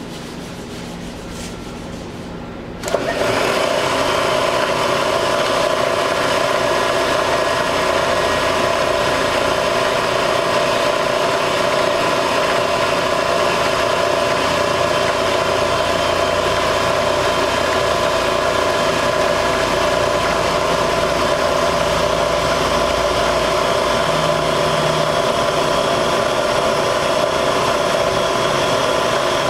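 Bridgeport Series 1 vertical milling machine's spindle motor switched on about three seconds in, then running steadily with an even whine.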